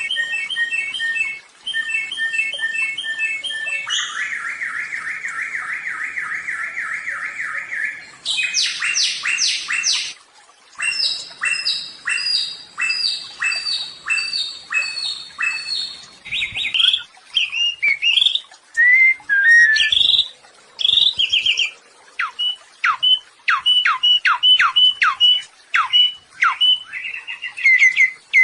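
A samyong songbird singing a long, varied song: phrases of quick repeated notes, a fast even trill lasting a few seconds, then series of sharp notes that sweep downward, about two a second near the end.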